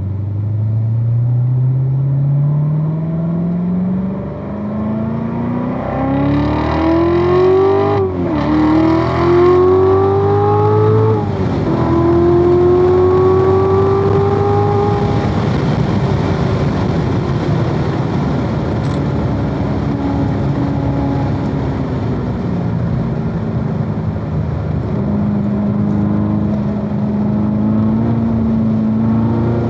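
Supercharged 6.2-litre LT4 V8 of a 2016 Corvette Z06 under hard acceleration, its pitch climbing through the gear with two quick upshifts about eight and eleven seconds in. Then it holds, eases off and runs at a lower, steadier note toward the end.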